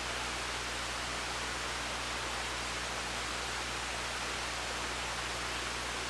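Steady, unchanging rushing hiss with a faint low hum beneath it.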